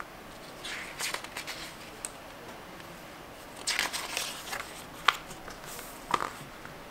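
Pages of a paper book being handled and turned: short bursts of paper rustling, then two sharp paper snaps a second apart near the end as a page flips over.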